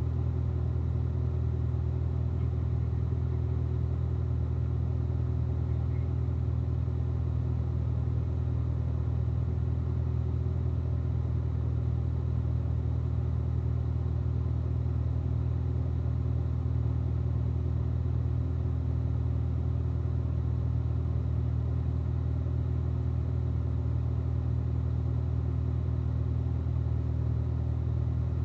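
Corvette Z06's supercharged 6.2-litre LT4 V8 running steadily, a constant low drone that holds one pitch throughout with no revving or gear changes.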